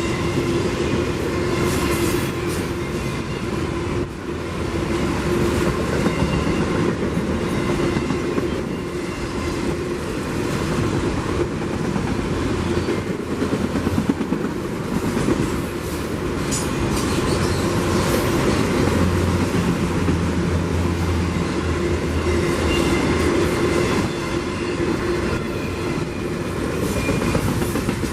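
CPKC train rolling by, wheels clacking over the rail joints, with a steady tone under the rolling noise.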